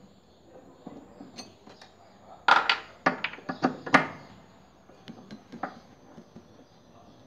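Metal tools and parts clinking and knocking while a washing machine's gearbox is being taken apart: light scattered clicks, with a quick run of about six sharp, louder clinks between two and a half and four seconds in.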